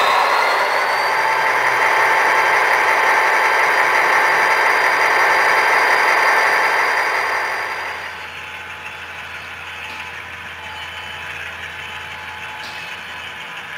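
HO-scale model diesel locomotives running on the layout's track, a steady mechanical hum and whir of motors and wheels with a thin high whine. About seven seconds in it falls away to a quieter, more distant running sound with a few faint clicks.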